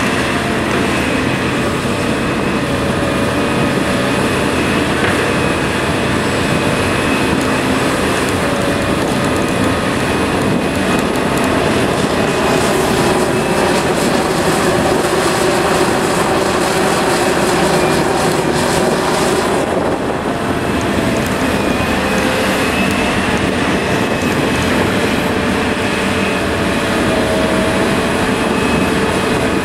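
Heavy diesel machinery running steadily: a Liebherr 974B excavator's engine and hydraulics and the articulated dump trucks it loads. The engine note shifts in pitch in the middle, with a short dip in loudness about twenty seconds in.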